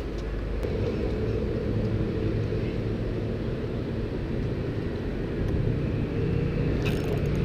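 A steady low engine drone that grows slowly louder. Near the end a hiss sets in on top of it.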